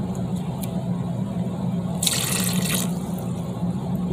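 Lime juice being poured into a bowl of cream cheese and condensed milk: a short splashing pour a couple of seconds in, lasting under a second, over a steady low hum.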